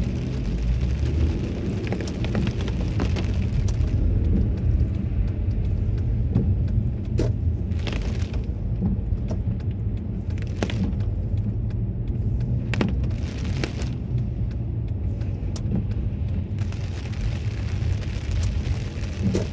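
Cabin noise of a Toyota Celsior driving on a rain-soaked road: a steady low rumble of tyres and engine, with short hissing splashes now and then.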